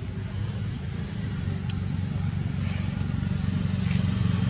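A motor engine running steadily, slowly growing louder. Faint high chirps repeat about every half second.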